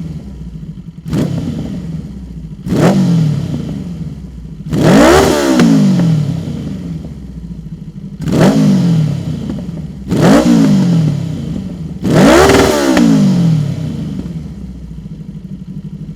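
1995 Yamaha XJ 900 Diversion's inline-four engine, breathing through a Dominator aftermarket full exhaust system, revved six times. Each blip rises in pitch and falls back to a steady idle. The blips come at uneven intervals, and the third and the last are longer and higher than the rest.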